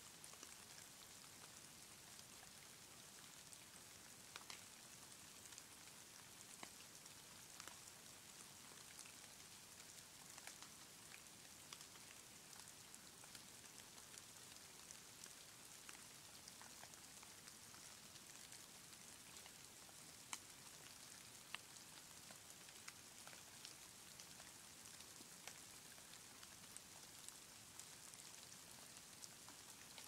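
Faint steady hiss of snowfall, with scattered light ticks of snow landing at irregular moments.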